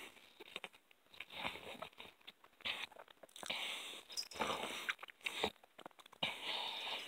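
Close-up chewing and biting into a large sesame-seed hamburger: wet, irregular mouth noises in short bursts with brief pauses.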